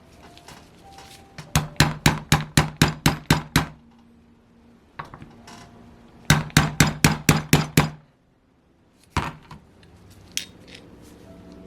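A hammer tapping a metal punch to drive out a stuck part of a Saito FA-100T model engine. There are two runs of quick, even blows, about five a second, then one more blow about nine seconds in; the part is not yet budging.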